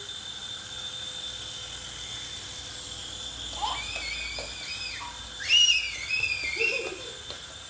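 High-pitched whistling: two wavering whistle-like calls, the first about halfway through and a louder one about two thirds of the way in.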